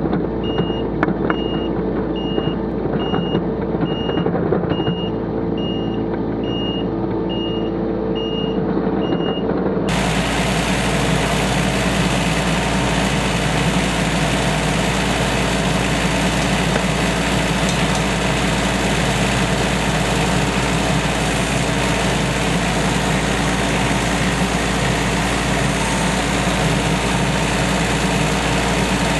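Takeuchi TB216 mini excavator's small diesel engine running, with a beeping alarm sounding a bit more than once a second for the first ten seconds. The beeping stops about ten seconds in, and the engine and machine keep running steadily while the excavator digs a trench.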